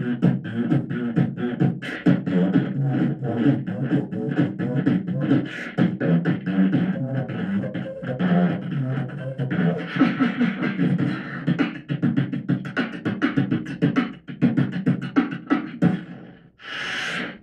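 Beatboxing into a handheld microphone: fast, dense vocal drum clicks and pops over low hummed tones, with a short loud hiss near the end.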